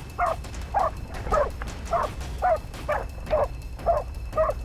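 Pig-hunting dog barking steadily, about two barks a second, holding a wild pig at bay (bail barking).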